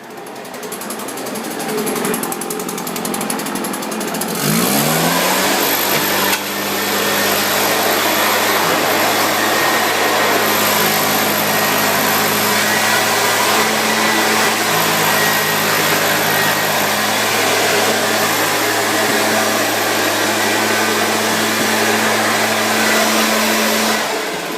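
Leaf blower revving up about four seconds in, then running at full throttle with a steady engine drone and rushing air. It drops off near the end.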